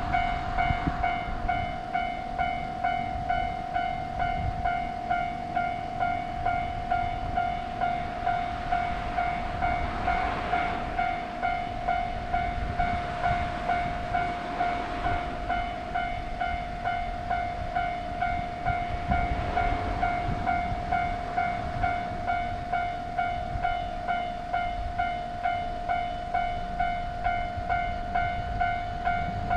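Japanese level crossing's electronic warning bell ringing in a fast even rhythm, about two strikes a second, while a train rumbles past over the crossing.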